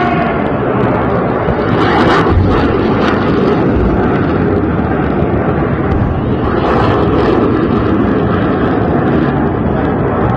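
Iron Dome interceptor missiles launching and streaking overhead with a steady, dense roar. Sharp booms of interceptions cut through it about two seconds in, again around three seconds, and around seven seconds in.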